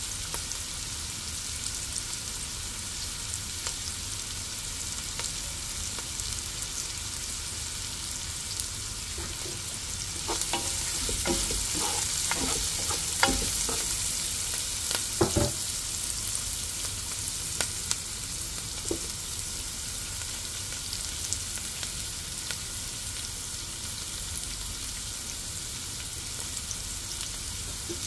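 Food sizzling as it fries in a pan, with a utensil stirring it. About ten seconds in the sizzle swells, and for several seconds the utensil knocks sharply against the pan.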